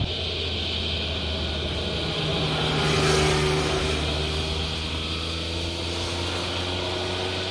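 A motorcycle riding past at road speed, its engine note swelling as it goes by about three seconds in, then easing a little as it pulls away.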